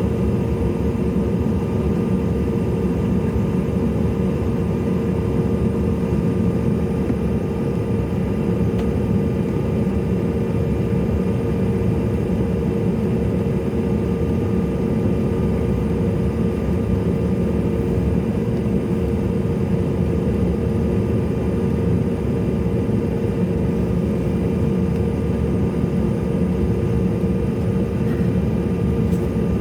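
Steady jet engine hum and whine of a CRJ-700's two rear-mounted GE CF34 turbofans, heard inside the cabin, holding an even level with no spool-up.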